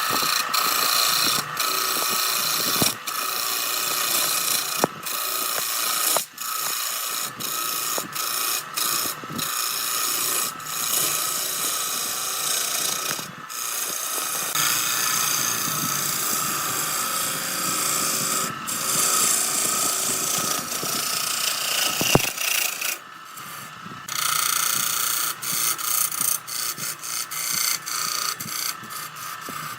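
Wood lathe with a turning tool cutting into a spinning glued-up wood blank: a continuous rough scraping hiss over a steady hum, broken many times by short gaps where the tool lifts off.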